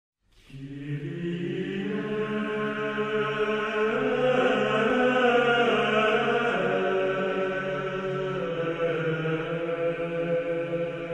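Orchestral music with a choir chanting in long, sustained chords. It fades in within the first second and swells to its loudest about five seconds in.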